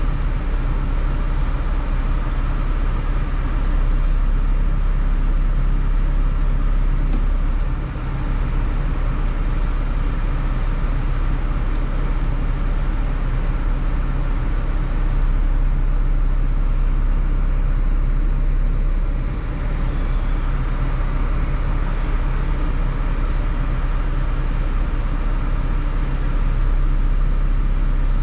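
A car engine running steadily with an even low hum, joined by a few faint light clicks.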